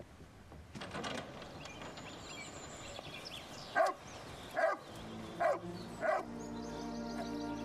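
A dog barking four times, short single barks a little under a second apart. Background music comes in about two-thirds of the way through, under the last barks.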